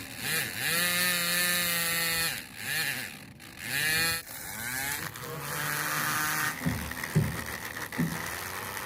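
Small motor of a homemade mini thresher spinning up with a rising whine and running at a steady pitch, winding down and starting again several times. A few sharp knocks come near the end, after which it settles into a lower, steady hum.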